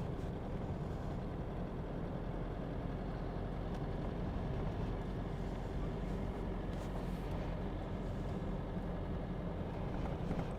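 A vehicle driving along: steady engine and road noise, even and unchanging throughout.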